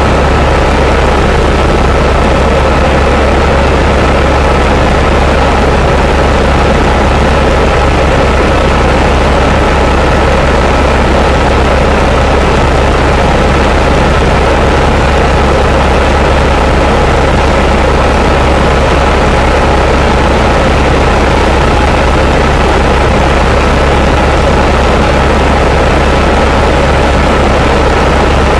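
Helicopter in flight, loud and steady: a deep rotor and engine rumble with a thin, steady high whine over a constant rush of air.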